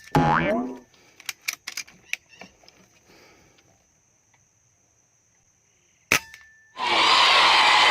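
Air rifle shot about six seconds in, a single sharp crack. Early on, a pitched call falls in pitch just after an earlier shot, followed by a scatter of light clicks and knocks. Near the end a loud, dense, continuous sound sets in abruptly.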